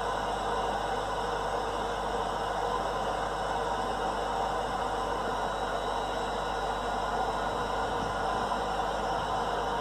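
Recorded womb sound played as soothing noise for a newborn: a steady, even whooshing hiss with no breaks.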